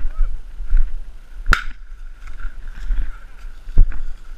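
Rustling and crunching through dry, harvested corn stubble with a low rumble on the microphone, broken by two sharp snaps, one about a second and a half in and one near the end.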